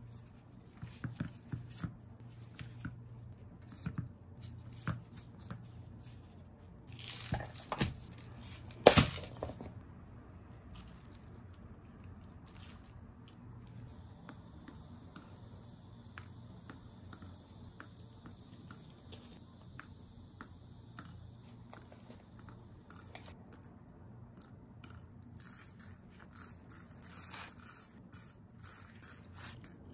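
Plastic zip bag crinkling and small glass beads clicking and rattling as the beads are handled for filling resin shaker frames, with one sharp knock about nine seconds in. A soft steady hiss runs for several seconds in the middle.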